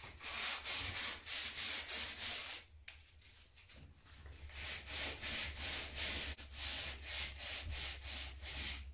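Hand-sanding dried filler on a plasterboard ceiling with a sheet of sandpaper: quick back-and-forth scratchy strokes that pause for about a second near the three-second mark, then resume.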